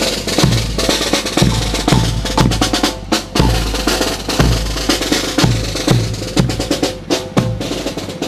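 Marching band drums playing a steady beat: a bass drum struck about twice a second under snare drum rolls and hits.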